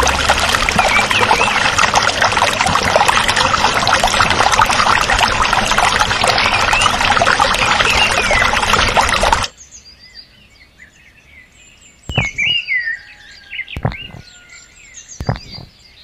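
Water pouring in a steady rush with many birds chirping over it, cutting off abruptly about nine seconds in; after that, only a few scattered bird chirps.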